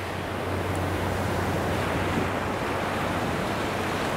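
Ocean surf breaking and washing up the beach, a steady rush.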